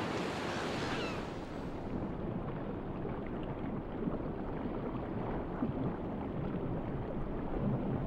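Sea water washing and lapping at the surface, turning after about two seconds into a duller, muffled underwater rush.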